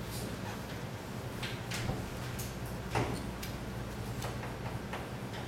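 Chalk knocking and scraping on a blackboard in a string of short, irregular strokes as characters are written, over a steady low room hum.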